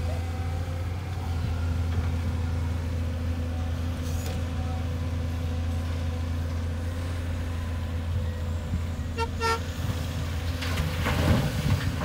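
Heavy diesel engines of a Caterpillar excavator and dump trucks running steadily, with two short vehicle-horn toots about nine seconds in. Near the end a louder rough rush as the excavator bucket tips soil into a dump truck's bed.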